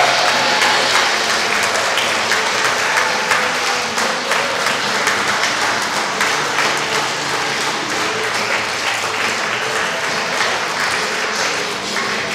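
Audience applauding, a dense patter of many hands clapping that eases off slowly.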